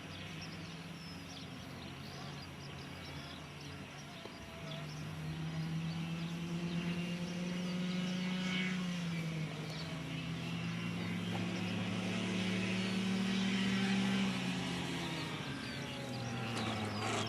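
Electric motor and propeller of an FMS T-28 Trojan RC model plane droning as it comes in to land. The drone grows louder about five seconds in and steps down in pitch twice, near the middle and again near the end.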